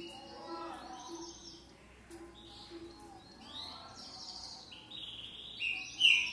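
Caged green-winged saltator (trinca-ferro) singing: soft, scattered phrases for most of the time, then two loud, short phrases near the end, the last falling in pitch.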